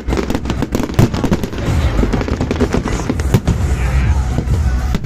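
Fireworks display going off: rapid, irregular bangs and crackles, several a second, over a continuous low rumble.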